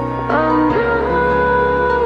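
Background music led by guitar, with a few notes sliding in pitch.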